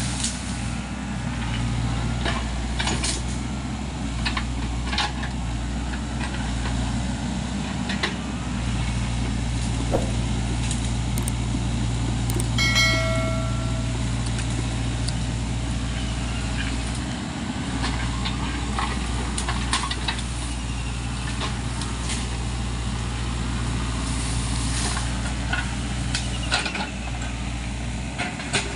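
SANY compact excavator's diesel engine running steadily as the machine works through a bamboo thicket, its note dipping briefly a few times. Sharp cracks and snaps of breaking stems and track clanks come and go throughout.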